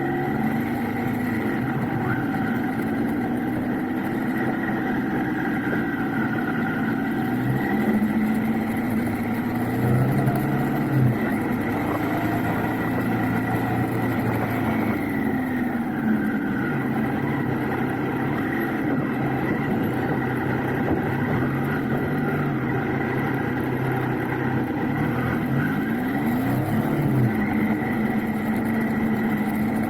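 Triumph Trident 660's inline three-cylinder engine running steadily, its pitch rising and falling a few times.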